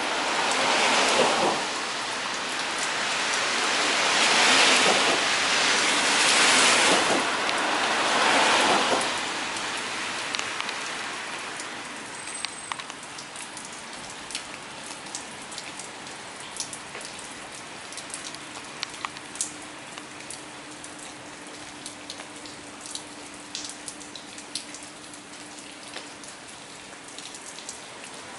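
Rain and water dripping off a steel bridge girder: a steady hiss with many sharp drip ticks scattered through it. The hiss swells louder in three waves over the first nine seconds, then settles.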